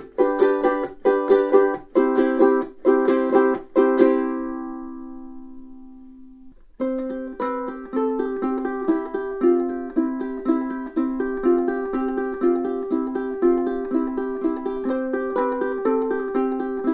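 DJ Morgan all-solid koa concert ukulele: strummed chords stop about four seconds in and the last chord rings out and fades. A few seconds later a new passage begins on the ukulele, a steady run of single notes.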